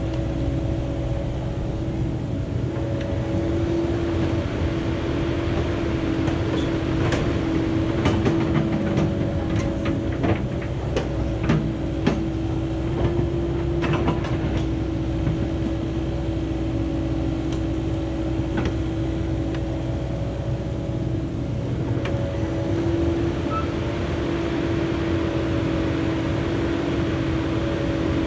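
Diesel engine of a Cat 308 excavator running steadily, with a cluster of sharp metal clanks and knocks about a third of the way in.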